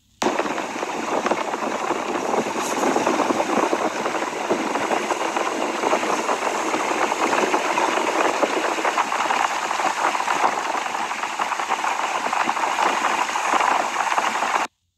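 Steady running of a small motorboat's engine mixed with a rush of water and wind, heard from aboard the boat. It starts abruptly and cuts off abruptly near the end.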